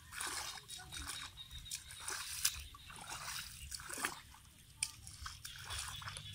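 Bare feet squelching and sloshing through wet mud and shallow water, a series of irregular wet steps.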